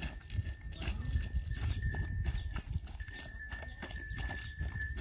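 Light, irregular knocks and clicks, several a second, over a steady low rumble, with a faint thin high tone.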